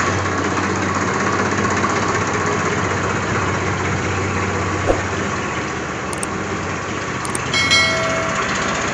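Swaraj 963 FE tractor's three-cylinder diesel engine running steadily just after being started. Near the end a couple of clicks and a short bright chime of a subscribe-button sound effect are laid over it.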